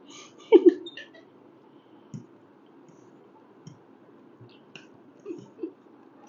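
People eating noodles: scattered small clicks of utensils and mouth sounds over a quiet room, with one brief louder sound about half a second in.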